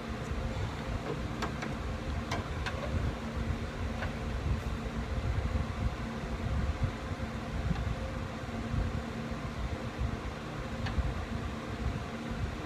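Steady mechanical hum, with a few faint clicks from a tool as a battery terminal's wire clamp screw is tightened down on the cable.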